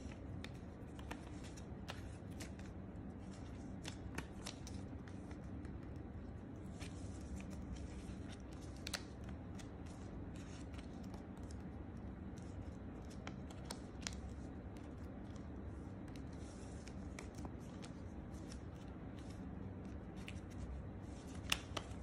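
A sheet of origami paper being folded and creased by hand: faint scattered rustles and small crisp clicks of the paper, over a steady low room hum.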